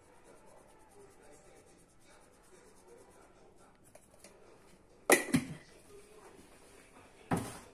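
Quiet kitchen room tone broken by a sharp double knock about five seconds in and a single sharp knock near the end.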